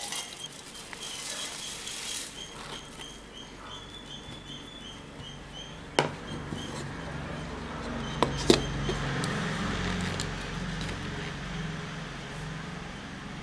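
Dry roasted flattened-rice flakes (aval) poured from a plastic plate into a steel mixer jar with a light rustle. Later come a few sharp clicks and knocks, the loudest about six seconds in and a pair about two seconds after, with a low hum rising briefly around them.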